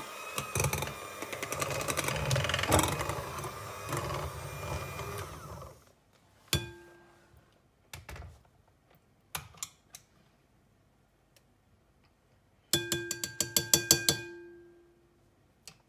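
Electric hand mixer beating mascarpone cream in a glass bowl, switched off about six seconds in. A few light knocks follow, then near the end a quick run of clinks with a short ringing tone as a spoon scrapes cream off the metal beaters over the bowl.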